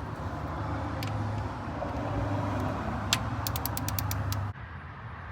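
A ratchet wrench clicking, a quick run of about seven sharp clicks partway through, over a steady low hum. The sound cuts off suddenly near the end.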